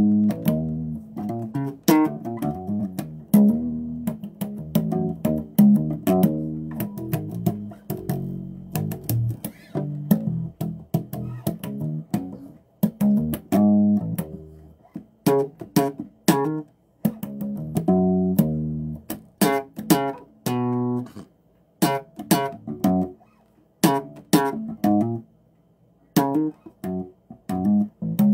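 Bass guitar played solo: a run of plucked notes with sharp attacks and a few short pauses between phrases.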